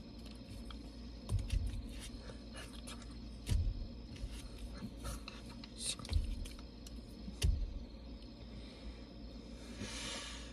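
Soft rustles, brushes and four dull thumps from a person signing in a car seat: hands and arms moving against clothing, body and seat. Under it runs a faint steady high chirr of crickets, with a short hiss near the end.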